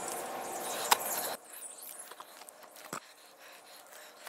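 Tree-climbing gear being handled against a trunk: rope, buckles and boots rubbing and knocking, with a sharp click about a second in. The sound drops suddenly after that to quieter scattered clicks and a single knock.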